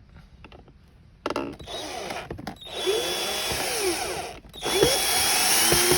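Cordless power drill driving screws into the toy car's plastic body: two runs of the motor with a short break between them, the second the louder.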